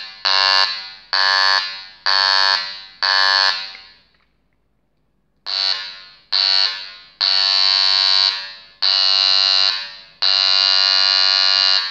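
Homemade single-tone electronic siren giving a loud, buzzy tone at one steady pitch in separate blasts as it is switched on and off: five short blasts about a second apart, a pause of about a second and a half, then a run of longer blasts. Each blast starts sharply and fades toward its end.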